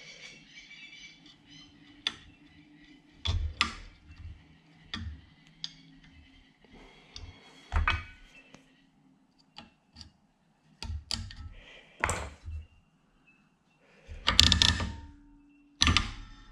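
Irregular clicks and clunks of metal parts being handled and fitted together, as a park brake ratchet-and-pawl assembly is reassembled on the bench. The knocks are scattered at uneven gaps, with the loudest a little after the middle and near the end.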